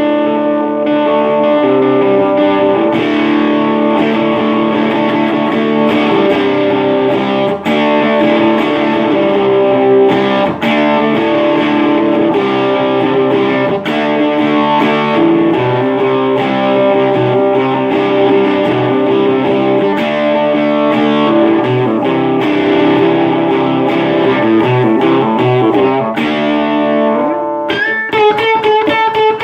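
Electric guitar played through an Earth Sound Research amp with a Boss DS-1 distortion pedal, in a classic rock tone: steady distorted chord playing, then near the end a few single notes left ringing out.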